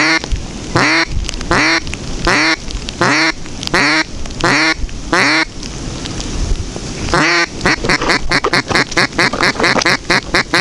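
Live decoy duck quacking loudly: seven spaced, drawn-out quacks, then after a short pause a quick run of about fifteen short quacks, calling to draw in passing ducks. Steady wind and rain noise underneath.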